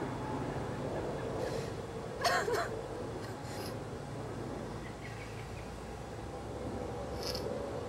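A woman crying quietly: a few sniffs and shaky breaths, the loudest about two seconds in, over a steady low background rumble.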